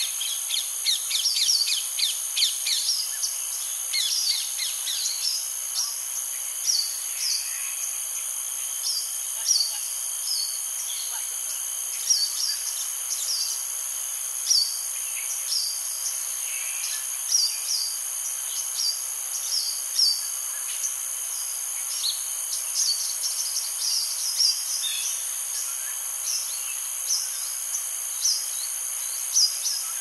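Insects ringing steadily at a high pitch, with short bird chirps repeating about once a second over it and a quick flurry of calls about one to three seconds in.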